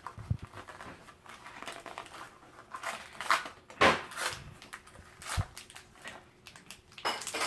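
Plastic toy packaging crinkling and tearing as it is opened by hand, in irregular short bursts, loudest about four seconds in.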